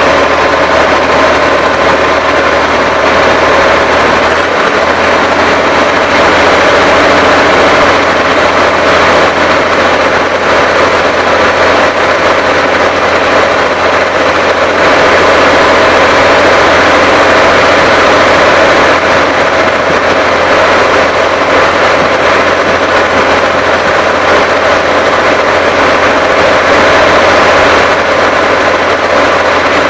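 Engine of an Uzbek-made irrigation pump unit running loudly and steadily at a constant speed.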